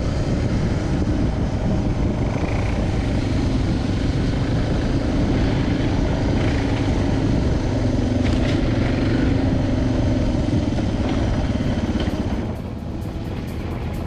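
Suzuki DR650's single-cylinder engine running steadily under way on a trail ride, with wind and road noise. About twelve seconds in, the engine sound drops away and gives way to a different, quieter sound.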